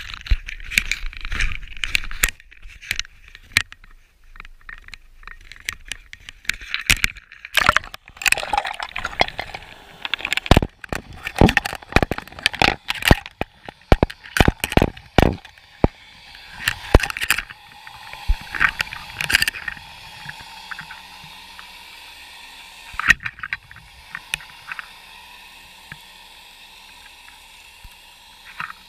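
A waterproof action camera knocking and scraping as it is handled and lowered over the side of a kayak into the water, with many irregular sharp clicks and knocks and gurgling water. After about 17 seconds the knocks thin out to an occasional tick over a steady underwater hum as the camera hangs below the surface.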